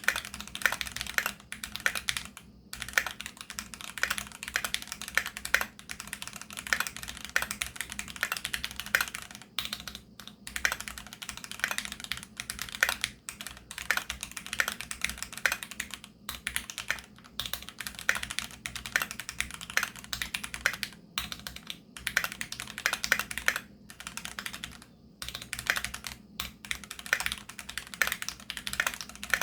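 Continuous fast typing on a Keychron Q2 aluminium-case mechanical keyboard with Gateron G Pro Brown tactile switches: rapid keystroke clicks with brief pauses every few seconds.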